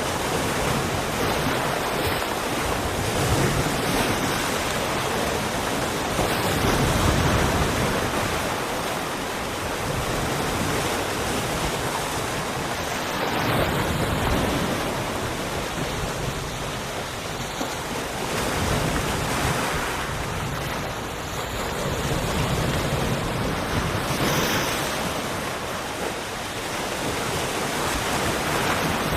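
Sea waves washing on a shore: a continuous rush of surf that swells and eases every several seconds.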